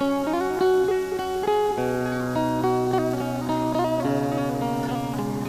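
Background music led by plucked guitar, with a deeper accompanying note coming in about two seconds in.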